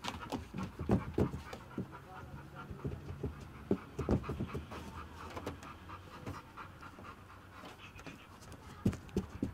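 A detector dog panting steadily, with scattered knocks and clicks of movement among the bus seats.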